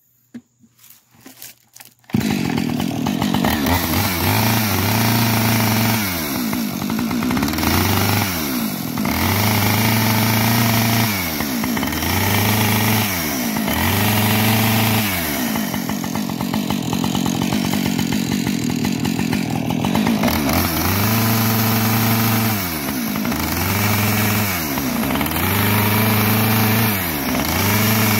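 Husqvarna 545 two-stroke chainsaw, cutting into a pumpkin. After a few faint clicks it comes in loud about two seconds in, then revs up and drops back over and over, every second or two, with a steadier stretch around the middle.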